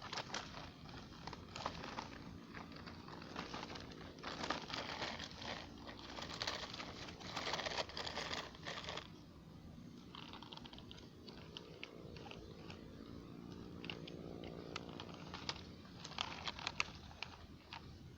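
Small RC model excavator digging dirt: crunching and scraping of soil and grit, loudest in a run of bursts a few seconds in, then scattered clicks, over a faint small-motor hum.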